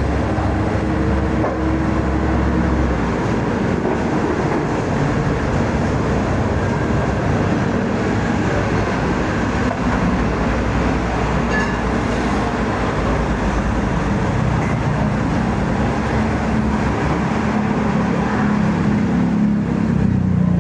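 A motor vehicle running: steady engine hum with road and wind noise.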